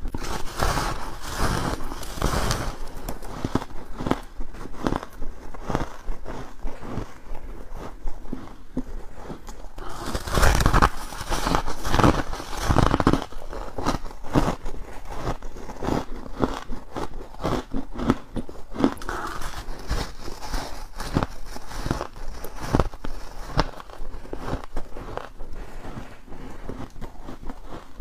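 Close-miked bites and chewing of squeaky, granular freezer frost ('buckwheat ice'): a dense, irregular run of crackling crunches, heaviest about two seconds in and again between about ten and thirteen seconds.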